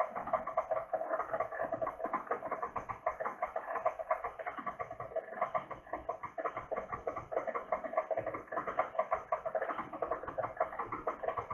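Tilt-head stand mixer running steadily, its beater working dry, crumbly tamale masa in a stainless steel bowl, with a fast, even rattle.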